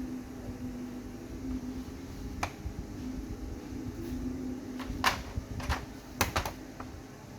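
Five or six sharp clicks and taps over a steady low hum, mostly in the second half, the sort made by handling tools and parts during bench work.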